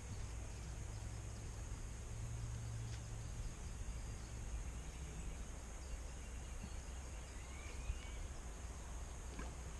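Riverside outdoor ambience: a steady low rumble under a thin, steady high-pitched insect hum, with a short rising bird chirp near the end.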